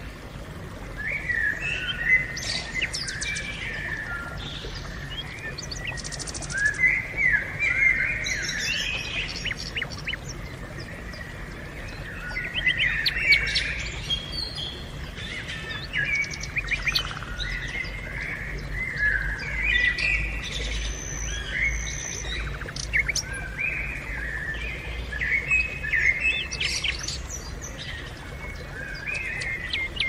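Several birds singing and chirping at once in the open, with overlapping short chirps and quick trills.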